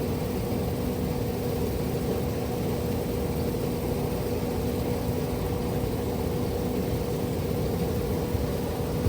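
Steady mechanical hum of an engine or motor running at constant speed, a low rumble with a fixed-pitch drone over it and no change in pitch or level.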